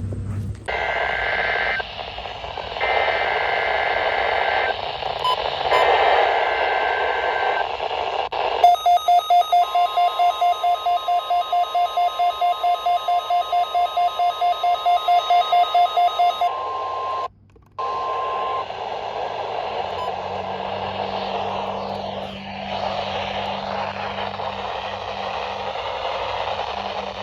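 NOAA Weather Radio weekly test heard over a radio. Under static hiss come three short buzzy bursts of digital data, the SAME header that opens the alert. Then a beep pulses about four times a second over a steady tone for about eight seconds, the signal drops out briefly, and the hiss returns with a low hum.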